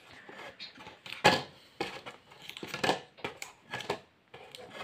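Cardboard and paper phone-box packaging being handled as the insert is worked out of the box: a string of irregular rustles, scrapes and knocks, the sharpest about a second in.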